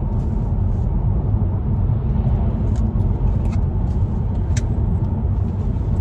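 Steady road and engine rumble inside a moving car's cabin, with a few light clicks near the middle as items in a handbag are handled.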